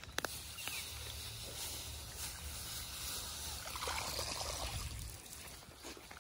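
Bundles of rice seedlings being grabbed and lifted out of wet paddy mud: leaves rustling, with wet squelching and trickling water.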